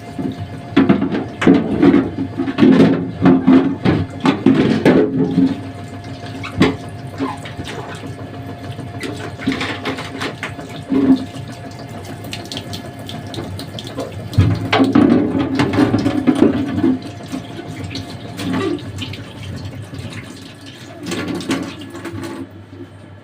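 Water running from a kitchen tap into a sink while something is rinsed under it, the splashing surging and easing unevenly, loudest over the first few seconds and again in two shorter spells later on.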